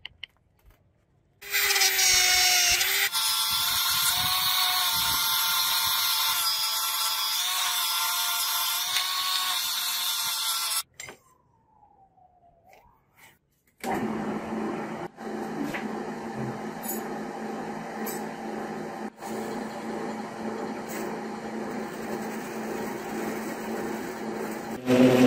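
A handheld rotary tool with a felt polishing wheel spins up to a steady high whine, then cuts off. After a short quiet, a metal lathe runs while a drill bit in the tailstock bores into brass stock turning in the chuck.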